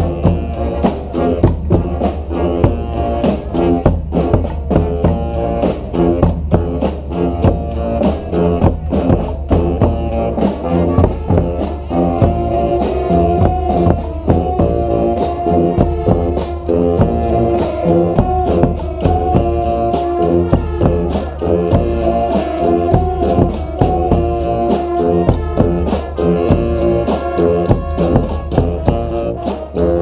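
Live street brass band playing an up-tempo tune: sousaphones, saxophones and other horns holding and moving melody lines over bass drums keeping a steady beat.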